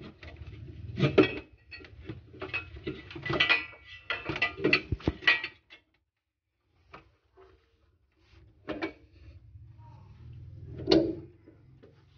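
Metal parts and tools clinking and knocking as they are handled, in irregular runs of sharp clicks. The sounds stop for about two seconds midway, then resume.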